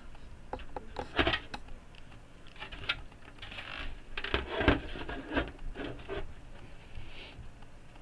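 Hard plastic parts being handled: irregular clicks, taps and short scrapes.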